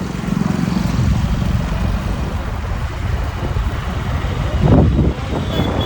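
Busy street noise of road traffic, steady and low, with a louder swell about four and a half seconds in.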